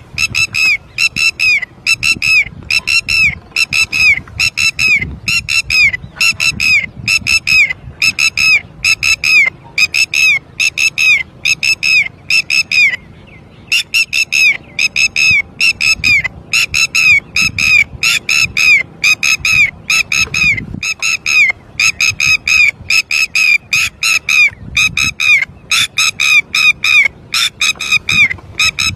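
Red-wattled lapwing giving loud, rapid, repeated alarm calls, about two to three sharp notes a second, with a brief pause about halfway: a parent bird calling persistently after losing its chick.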